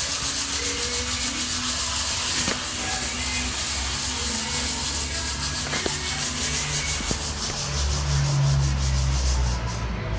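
Handling noise: a steady scratchy rubbing on a hand-held camera's microphone, over a low hum that grows louder near the end.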